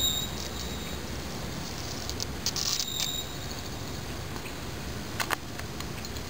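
High, thin chirping calls about a second long, one at the start and another about two and a half seconds in, which the uploader takes for the chirping of the baby frogs. A short knock sounds about five seconds in.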